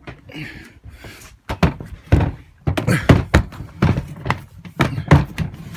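Plastic portable toilet being lifted and knocked into place among wooden cabinetry and a plastic storage box. After a quiet start, a quick, irregular run of knocks and thunks begins about a second and a half in.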